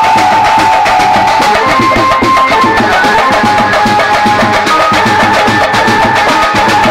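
Marfa drum ensemble playing a fast, dense rhythm of stick-struck drums. A high held tone runs over the drumming and steps to a new pitch now and then.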